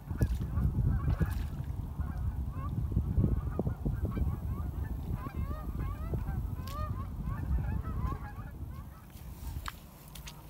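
A flock of geese honking, many overlapping calls that thin out near the end, over a steady low rumble.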